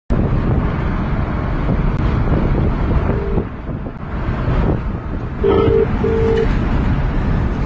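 Steady road and engine noise inside a moving car, with a telephone ringback tone over it: a short burst about three seconds in, then a double ring near the end, the Australian ring cadence of an outgoing call not yet answered.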